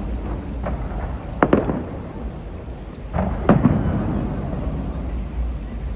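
Fireworks shells bursting: sharp bangs about a second and a half in and about three and a half seconds in, each trailing off in a rolling echo, over a continuous low rumble of further bursts.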